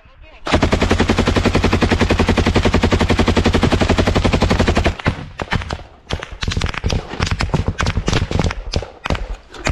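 Machine gun firing one long continuous burst of rapid shots that stops suddenly about five seconds in, followed by a scatter of irregular sharp knocks and bangs.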